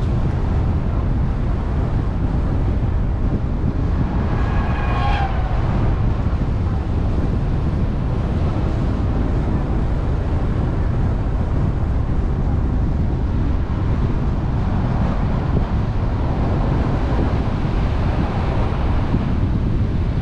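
Steady low rumble of wind buffeting the microphone and road noise from a car on the move. About five seconds in, a short pitched tone sounds, gliding slightly downward.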